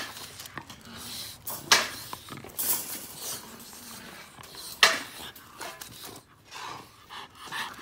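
Metal wire exercise pen rattling and clanking as bully puppies bump and push against its panels, with a few sharp metallic clanks among softer scuffling.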